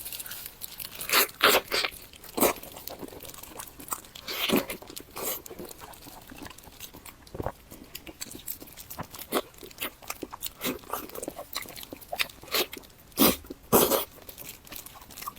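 Close-miked biting and chewing of crunchy food, a run of sharp crunches throughout, loudest about a second in, around four and a half seconds, and near the end.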